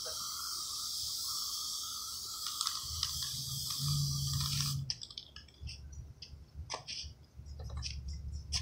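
Aerosol spray can of metallic paint hissing steadily as it sprays onto a canvas, cutting off sharply about five seconds in. A few light clicks and knocks follow as the painting is handled.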